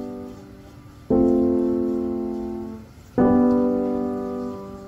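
Background piano music: slow chords struck about every two seconds, each left to ring and fade.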